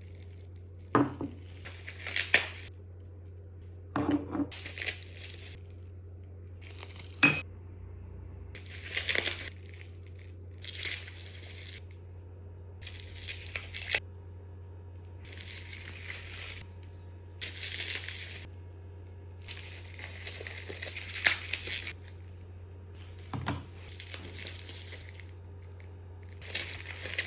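Wrapping crinkling in repeated handlings, each burst about a second long, with a few sharp clicks in between.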